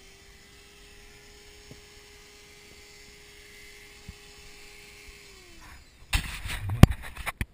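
Handheld rotary tool motor running steadily with a high hum, then winding down as it is switched off about five and a half seconds in. A burst of loud rustling and knocks follows near the end.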